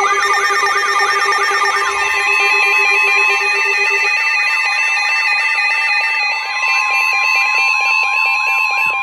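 Several electronic emergency alert tones sounding over one another, signalling a severe thunderstorm warning: steady and beeping tones together with a warble that sweeps up and down about three times a second.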